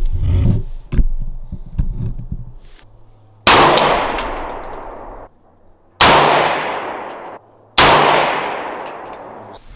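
Three rifle shots, each followed by a long echoing tail that dies away over a second or two; the first two tails are cut off short. A few light clicks and handling sounds come before the first shot.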